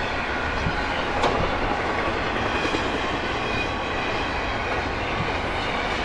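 Double-stack intermodal container train rolling past, a steady noise of wheels on rail with one sharp clank about a second in.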